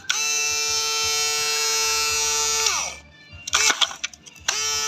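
Small 750 GPH electric bilge pump running with a steady high whine. About two and a half seconds in it cuts out and winds down with falling pitch, then starts up again near the end.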